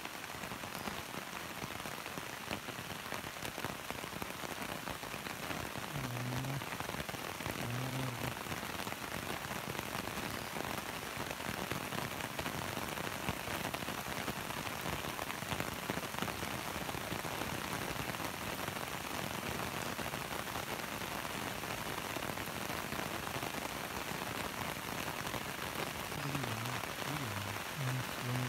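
Steady rain falling in an even, unbroken hiss.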